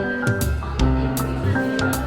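Background music with a bass line, held notes and a steady drum beat.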